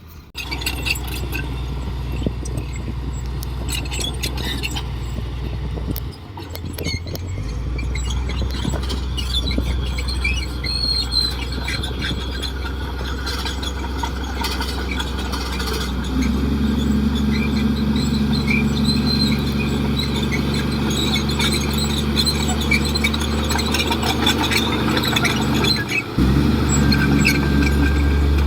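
Komatsu D58 crawler bulldozer's diesel engine running steadily under work, with high squeals and clicks over it. The engine note shifts about 6 seconds in, grows louder and higher about 16 seconds in, and briefly dips near the end.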